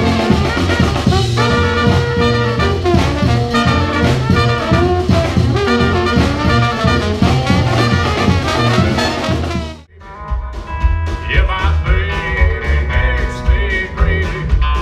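Live brass band music: trumpets and trombone over sousaphone and drums. It cuts off abruptly about ten seconds in and gives way to electric guitar over upright bass and drums.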